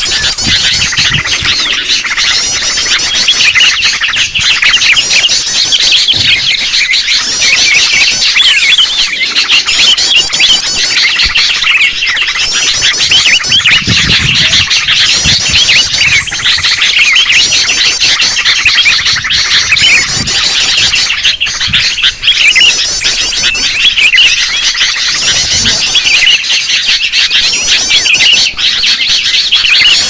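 Loud, dense chorus of sooty-headed bulbuls chattering, many birds calling over one another without a break. It is a noisy flock recording of the kind played as a lure to draw bulbuls in.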